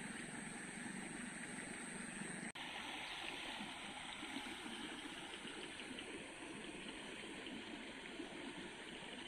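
A small creek flowing, a faint, steady rush and gurgle of water, with a brief break about two and a half seconds in.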